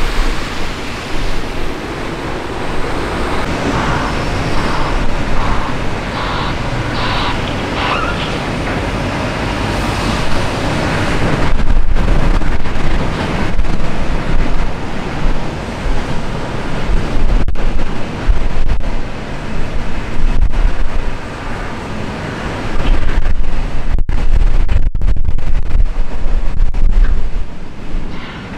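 Diesel engines of trucks and a Volvo L180H wheel loader working a sugar beet pile, heard under a dense rushing noise. About twelve seconds in it grows louder and rumbles unevenly.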